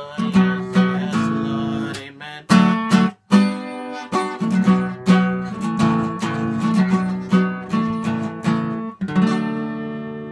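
Acoustic guitar with a capo on the second fret, strummed chord after chord in a steady rhythm, with a brief stop about three seconds in. A final chord about nine seconds in is left to ring and fade.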